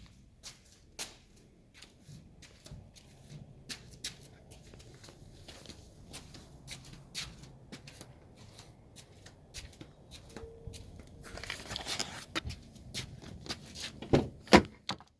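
Scattered clicks and knocks of handling and movement, a brief rustle about twelve seconds in, and a few louder thumps near the end.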